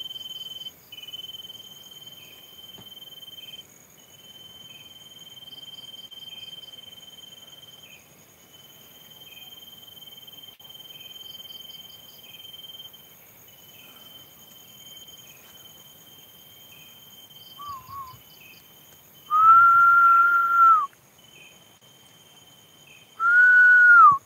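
Crickets chirping steadily: a continuous high trill with a short chirp about once a second. A man whistles over them: a short wavering note about 18 seconds in, then two long held whistled notes, each dropping in pitch at its end, which are the loudest sounds.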